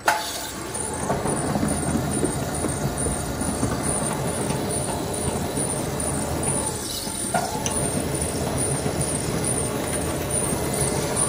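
Belt conveyor starting up suddenly and running steadily on its newly replaced, freshly tensioned belt, the drive motor and rollers turning. A faint high ticking repeats about twice a second over the running noise.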